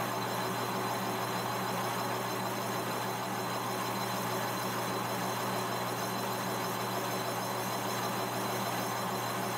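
Monarch engine lathe running steadily, its motor and gearing giving a constant hum under an even hiss.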